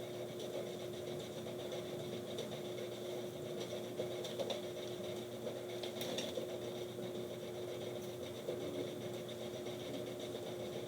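A fan running with a steady hum and one constant tone, with a few faint clicks.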